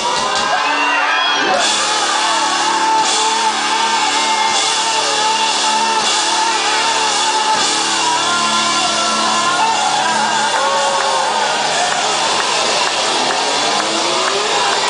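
Rock band playing live, loud and steady, with a lead line of wavering, gliding notes over sustained lower notes and some shouted singing.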